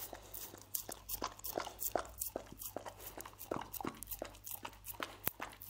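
A dog licking honey off a wooden board, close up: quick wet licking and smacking clicks of the tongue and lips, several a second and uneven.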